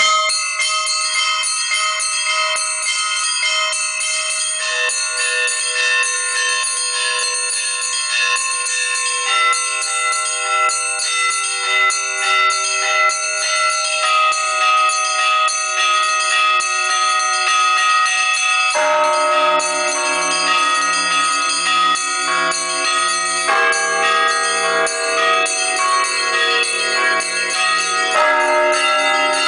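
A set of church bells in an Orthodox cathedral belfry rung by a single bell-ringer: small bells chime rapidly and continuously in a changing pattern, and about two-thirds of the way through a deeper bell joins, striking in a steady beat beneath them.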